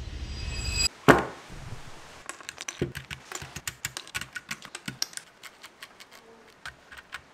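A sharp knock about a second in, then a quick, irregular run of small plastic clicks and clacks from a mechanical keyboard as its keycaps are pulled off the switches.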